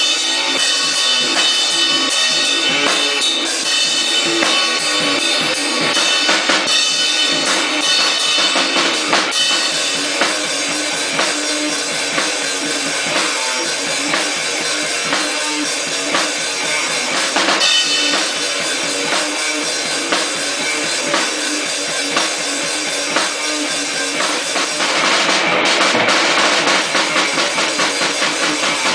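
Grindcore-style noise music: a drum kit played under a dense wall of distorted noise, with a run of quick, even beats near the end.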